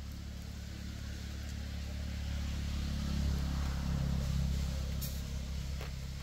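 Low hum of an engine running, growing louder to a peak about three seconds in and then easing off, with two faint clicks near the end.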